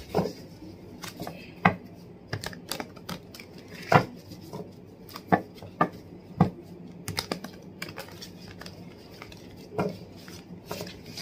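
A deck of tarot cards being shuffled by hand: irregular snaps and taps of cards striking one another, a few of them louder.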